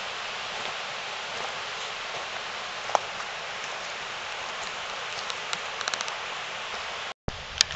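Steady rushing hiss of outdoor woodland ambience, with a few scattered light clicks, a quick run of them about six seconds in. The sound drops out for an instant near the end.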